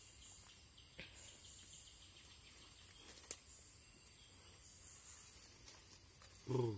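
Insects trilling outdoors in one continuous high-pitched tone, with a single sharp click about three seconds in and a short human voice sound near the end.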